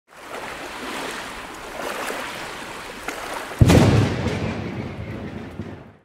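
Steady hissing noise, then about three and a half seconds in a sudden loud, deep crash that fades away over two seconds.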